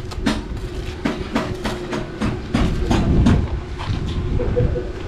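Rapid series of sharp knocks and taps, about three a second, over a steady low hum: hand-tool work on a construction site. The tapping thins out in the last second or so.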